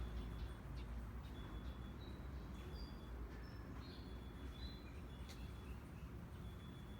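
Small birds chirping: many short, thin, high chirps at irregular intervals over a low steady rumble.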